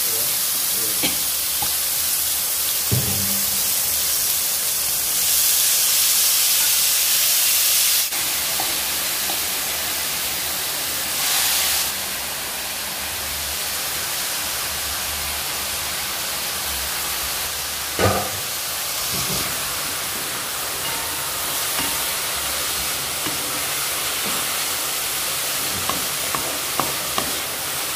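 Mushrooms sizzling as they stir-fry in a metal wok, a steady hiss with a few knocks and scrapes of the spatula against the pan.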